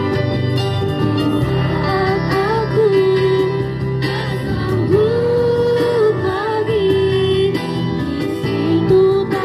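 A religious song sung over instrumental accompaniment: a slow melody line with long held notes.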